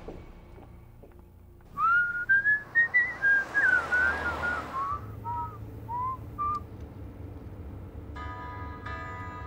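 A person whistling a short tune, a string of separate sliding notes, for about five seconds. Near the end a steady chord of several held tones comes in.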